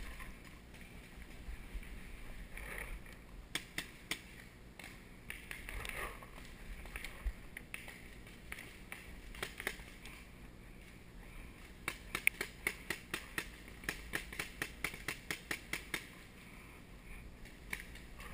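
Paintball markers firing across the field: scattered sharp pops, then a rapid string of about five shots a second for several seconds past the middle.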